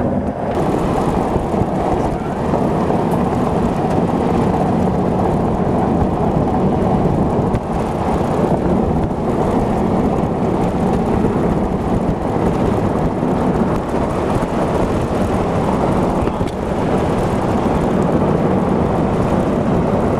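Steady engine and road rumble of a moving car, heard from inside the cabin.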